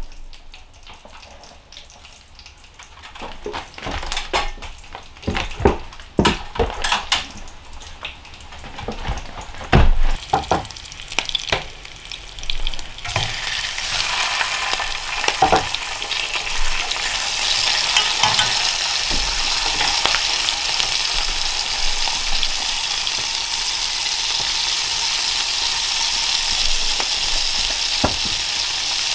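Scattered knocks and taps of work on a wooden ceiling, then, from about 13 seconds in, food sizzling steadily in a cast iron frying pan on a wood stove, with occasional scrapes of a utensil stirring it.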